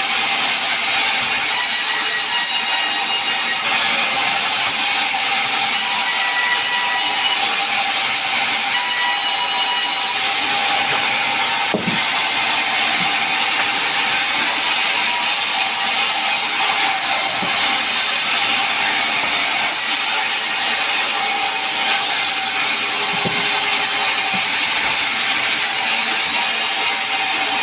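Sawmill saw cutting through pine wood: a loud, steady, high-pitched rasping noise with a faint whine, broken by a few brief knocks.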